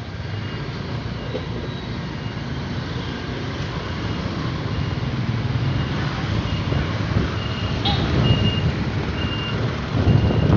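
Vehicle and road noise while travelling along a road, a steady rumble growing louder, with a faint short high beep repeating about once a second. The noise gets noticeably louder near the end.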